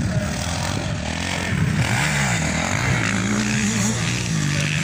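Motocross dirt bike engines revving on the track, their pitch repeatedly rising and falling as the throttle is worked.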